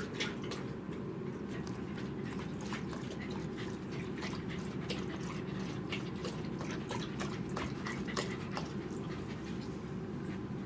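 Pembroke Welsh corgi lapping water from a ceramic bowl: quick, irregular wet clicks of the tongue, about three or four a second, over a steady low room hum.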